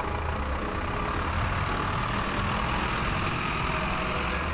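Truck engine sound effect running steadily, laid over a toy dump truck as it drives.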